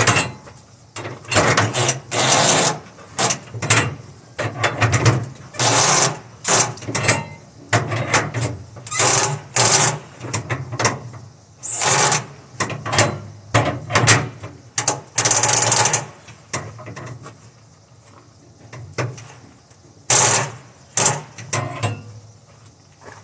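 Flatbed trailer strap winch being cranked tight with a winch bar, its ratchet pawl clattering in short bursts with each pull, about one a second. The tie-down straps are being tightened onto the load. The pulls pause for a few seconds and then resume for a few more.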